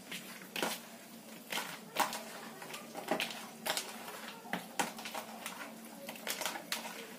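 Light, irregularly spaced taps and clicks of plastic kitchen containers being handled while salt is added to raw fish pieces in a plastic bowl, about a dozen short knocks in all.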